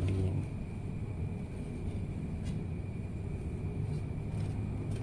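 Steady low rumble, with one faint click about two and a half seconds in.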